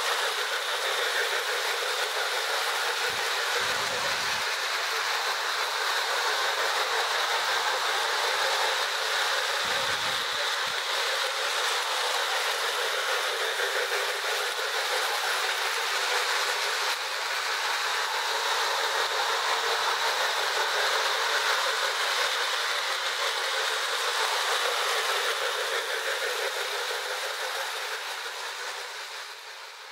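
Toy electric trains running on metal track: a steady whirring, rolling noise of motors and wheels that fades out near the end.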